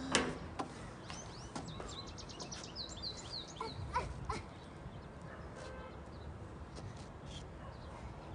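Scattered light knocks as a child climbs metal playground stairs. A small bird chirps in a quick run of high notes during the first half.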